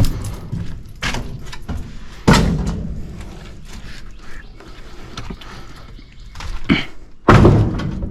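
Heavy bangs and thuds of a shed being torn down, about five hits in all. The loudest comes about two seconds in, another comes near the end, and each trails off briefly.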